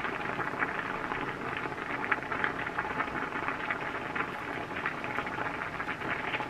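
Pot of spaghetti boiling on the stove: a steady bubbling hiss dotted with many small pops.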